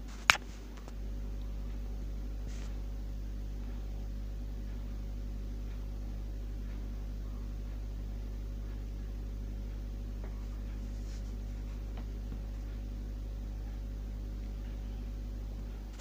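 A steady low hum at one unchanging pitch and level, with a single sharp click just after the start.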